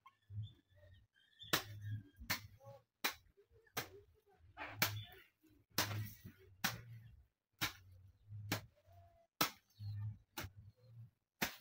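A hand hoe striking and chopping into soil over and over, a sharp hit with a dull thud roughly every 0.8 seconds.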